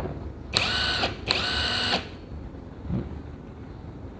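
KONSUN KX73001 cordless brushless impact wrench run with no load: two short trigger pulls in quick succession, each a high motor whine that rises as it spins up and then holds steady for under a second.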